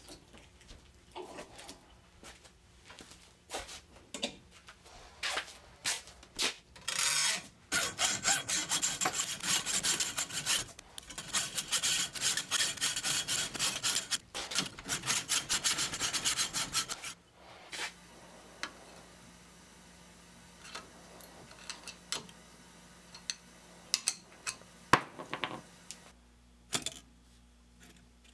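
Hand hacksaw cutting through a thick mild steel bar clamped in a bench vise, with rhythmic back-and-forth strokes. The sawing stops about 17 seconds in, followed by a few scattered clicks and knocks.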